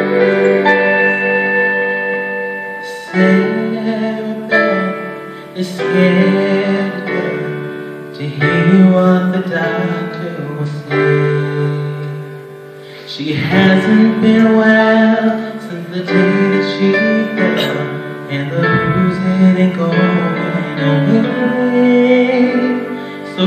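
A male vocalist singing a slow song into a microphone over a piano backing track.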